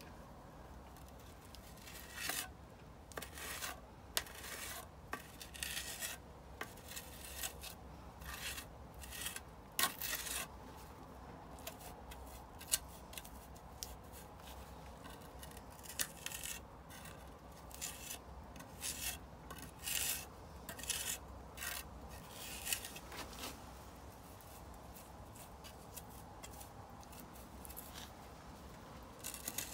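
Irregular scraping strokes of a flat tool drawn along wet clay, smoothing off a freshly added clay layer on a fireplace.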